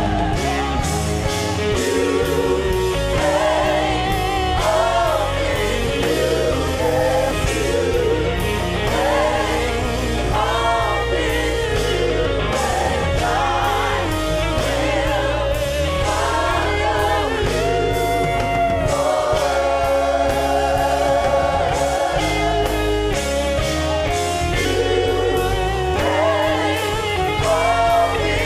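Gospel worship song sung by a praise team of several voices in harmony, over a band with bass and a steady drum beat.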